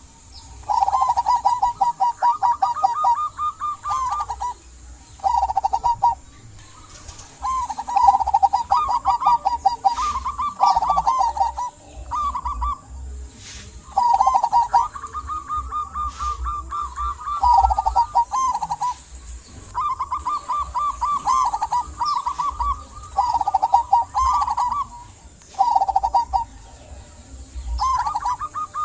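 Local zebra dove (perkutut) singing: repeated bouts of fast, stuttering cooing notes, each phrase one to three seconds long with short pauses between, the full song a perkutut gives when calling to stir other doves into singing.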